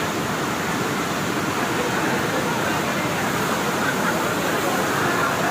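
Floodwater rushing in a steady, even torrent.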